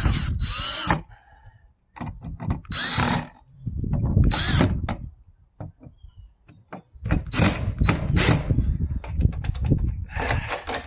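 Cordless drill-driver run in several short bursts, driving in the loose machine screws that hold a new RV door lock.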